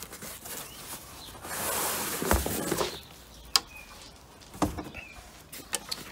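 A backpack being pulled out of a cardboard box: a rustling, sliding scrape of packaging for about a second and a half with a thump in the middle, then a few light clicks and knocks as the pack is handled. Faint bird chirps sound in between.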